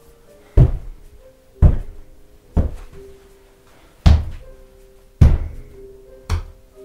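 A fist pounding on a wall: six heavy thuds about a second apart, the last one softer, over background music with long held notes.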